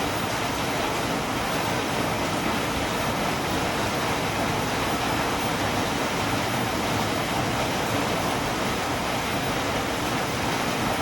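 Steady, heavy rain falling, an even, constant hiss with no breaks or individual drops standing out.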